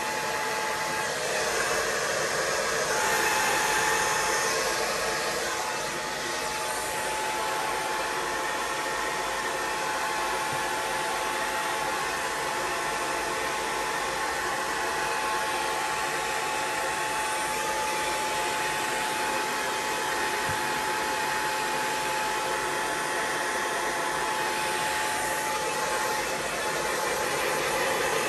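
Hand-held hot-air blower running steadily: an even rush of air with a faint steady whine.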